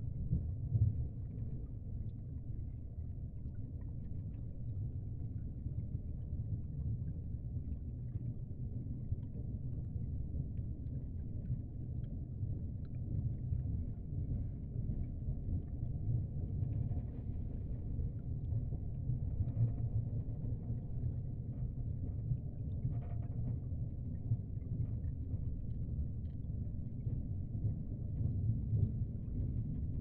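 A steady, low, watery rumble with no tune or voice in it. A few faint, brief higher sounds come through it about halfway and again a little later.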